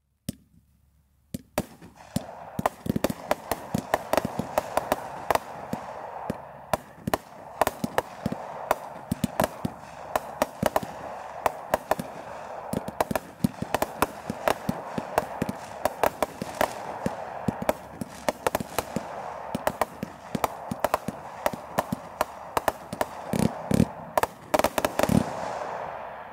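Three 25-shot consumer firework repeater cakes firing together. From about a second and a half in, there is a rapid, uneven stream of sharp shot and burst reports over a continuous crackling hiss from the strobe and lace star effects.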